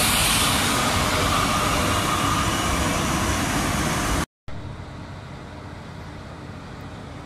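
HŽ series 1142 electric locomotive passing close by: a loud rushing of wheels and running gear with a faint steady hum in it. It cuts off abruptly about four seconds in, leaving a much quieter steady background hum.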